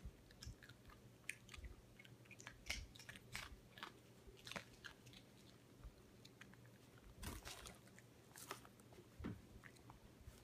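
A Morkie (Maltese–Yorkshire terrier cross) chewing corn nuts: a run of faint, irregular crisp crunches as the hard kernels break between its teeth, bunching up about two thirds of the way through.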